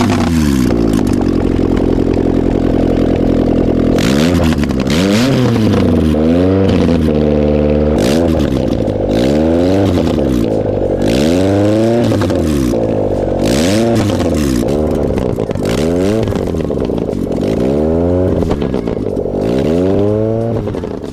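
Honda G23 VTEC four-cylinder running with its exhaust manifold off, exhausting straight out of the open ports: it idles steadily for about four seconds, then is revved up and let fall back again and again. The engine has fresh Skunk2 lost motion assemblies fitted in an attempt to cure a tick it has had since it was first started.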